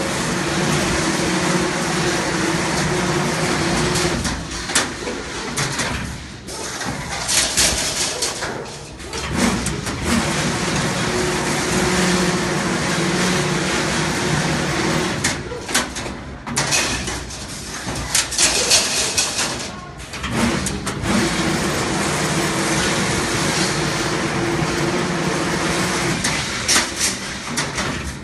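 CNC rebar bending machine working through repeated cycles. A steady motor hum runs for several seconds at a time and gives way, about every nine seconds, to a burst of metallic clanks and clatter, three times over.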